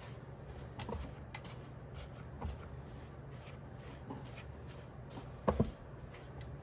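Rubber spatula scraping and stirring crumbly cookie dough in a stainless steel stand-mixer bowl: soft, irregular scrapes and light clicks against the bowl, with a sharper knock about five and a half seconds in.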